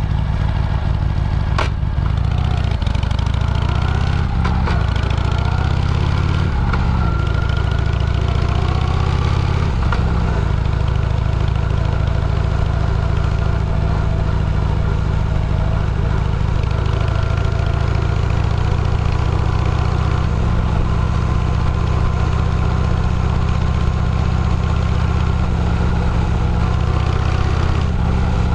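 Motorcycle engine running at a steady, unchanging pitch, with a single sharp click about a second and a half in.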